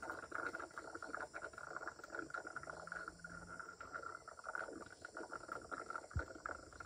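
An insect buzzing steadily, stopping just after the end, over wet scraping and small splashes as hands dig out mud and gravel at a small spring pool. A dull knock about six seconds in.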